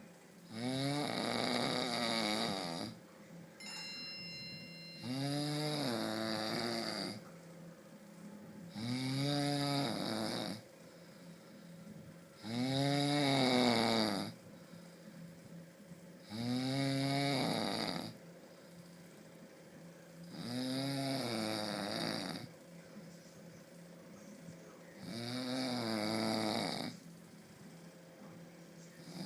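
A person snoring heavily: seven long snores, each about two seconds, coming about every four seconds, each with a rumbling tone that rises and then falls in pitch, with quieter breaths between.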